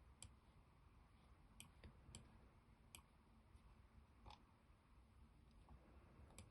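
Near silence with a handful of faint, sharp clicks, about seven, scattered irregularly: a computer mouse clicking while navigating on screen.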